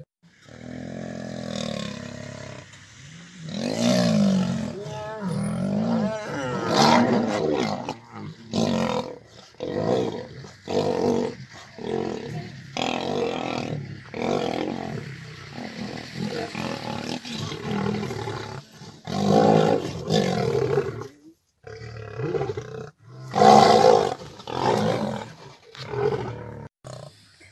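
Male lions roaring and snarling as they fight, in repeated harsh bursts of about a second each.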